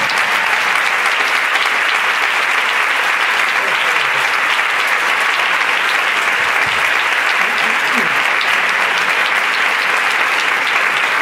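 Large theatre audience applauding steadily and loudly at the end of a choral carnival song.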